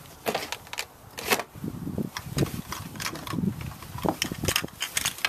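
Rustling and crinkling of a black nylon drawstring bag as it is pulled open and handled, with scattered light clicks and taps.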